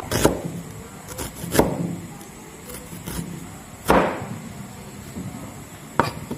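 Kitchen knife slicing a red onion on a plastic cutting board: sharp, irregular knocks of the blade hitting the board, the loudest about four seconds in.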